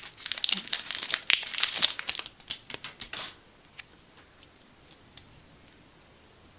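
Foil Yu-Gi-Oh booster pack wrapper being handled and torn open, a run of rapid crinkles and crackles that stops about three seconds in, followed by a few faint ticks.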